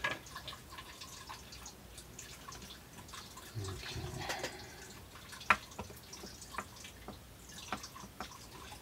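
Faint, irregular dripping of water from a sump pump running in the background, with a few sharp light clicks scattered through it.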